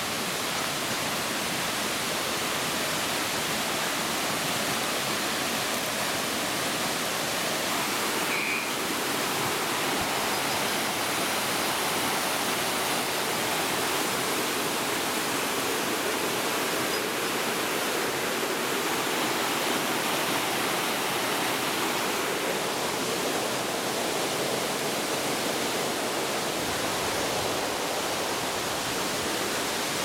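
Steady rush of a mountain stream running over rocks, an even noise with no breaks.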